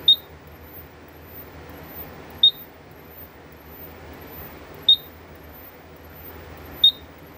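Silent Knight fire alarm control panel keypad beeping as its buttons are pressed to scroll through the alarm list: four short, high beeps, unevenly spaced about two seconds apart.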